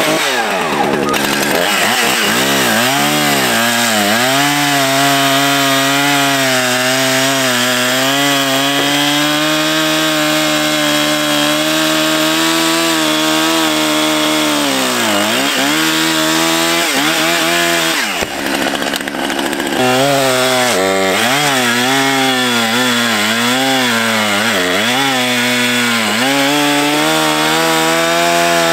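Chainsaw cutting wood, its motor running continuously with the pitch sagging and recovering as the bar loads up in the cut, dipping hardest twice in the middle and wavering repeatedly near the end.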